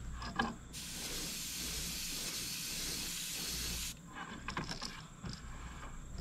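Iwata airbrush spraying white opaque base-coat paint: a steady hiss of air starts just under a second in and cuts off about four seconds in. Small clicks and handling sounds come in the pauses on either side.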